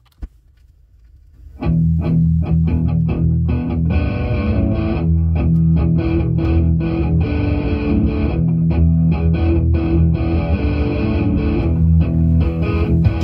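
A vinyl record playing through the Phase Linear 2000 preamp's phono stage and a Phase Linear 200 power amplifier over loudspeakers. There is a sharp click just after the start and a short faint lead-in, then music with electric guitar and a heavy bass line comes in about a second and a half in and plays on loudly.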